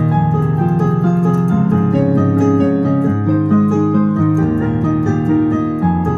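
Solo piano playing a flowing passage with many notes sounding together, the left hand carrying a moving bass under chords in the right, each phrase repeating the last at a new pitch (a melodic sequence).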